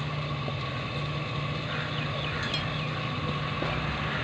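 Steady low machine hum over a faint haze of background noise, without starts or stops.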